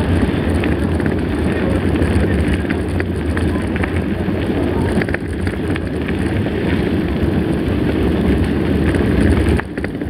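Mountain bike rolling over a gravel road, heard from a camera mounted on the bike: a steady rumble of tyres and wind on the microphone, with scattered small clicks and rattles from the gravel and bike. The level dips briefly near the end.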